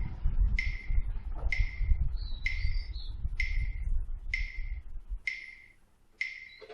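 Horror sound effect: a short, high tone that repeats about once a second over a low rumble. The rumble fades out about five seconds in, and a brief warbling chirp comes in the middle.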